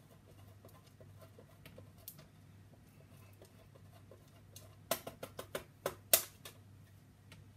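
Cheese being grated by hand on the coarse side of a box grater over a stainless steel bowl: faint rhythmic rasping strokes, then a quick run of sharper clicks from about five to six seconds in, the loudest near the end of that run.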